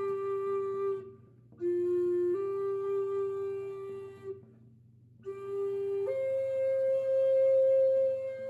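Flute playing slow, long sustained notes, stopping twice for a breath; after the second pause it climbs to a higher note and holds it for well over two seconds. A faint steady low hum lies underneath.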